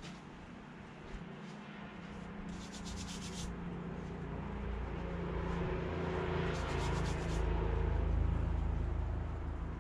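A low rumble that swells over several seconds and eases off near the end, with two brief scratchy rubbing sounds about three and seven seconds in.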